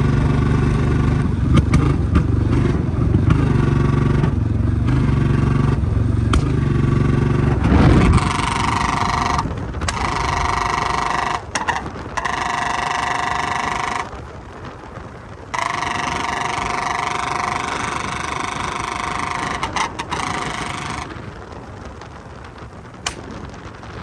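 Royal Enfield Bullet single-cylinder engine running while riding, its pitch stepping up and down with throttle and gear changes. About eight seconds in the engine sound falls away and steady higher tones take over, starting and stopping abruptly several times.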